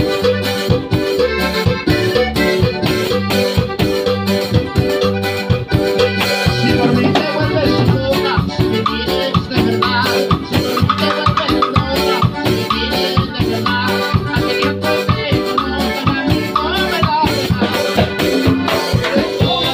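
Instrumental cumbia ranchera: accordion and electronic keyboard playing the melody over a steady cumbia beat.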